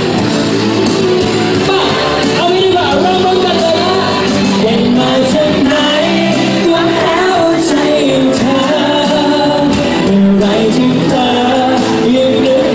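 Live Thai pop song played loud over a PA system in a large hall, a singer's voice carrying the melody over the backing track.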